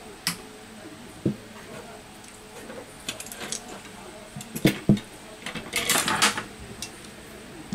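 Scattered sharp clicks and clinks of small metal tools handled on a repair bench. The two loudest come close together about two-thirds of the way in, followed by a short rustling burst.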